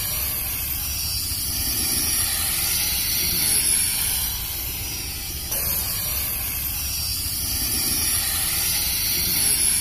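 S10 toy quadcopter's four propellers spinning with a steady high whine and hiss as it lifts off the grass and hovers; the sound changes abruptly about five and a half seconds in, at a cut.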